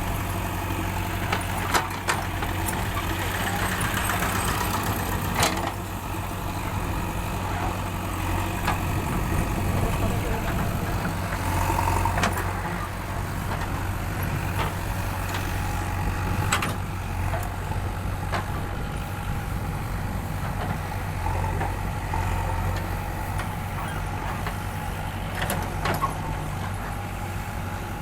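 Backhoe loader's diesel engine running steadily, with a few sharp knocks here and there.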